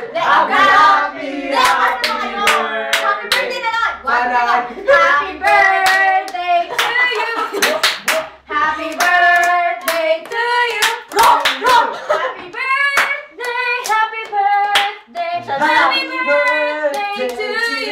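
A small group singing a birthday song together, clapping along in time at about two claps a second.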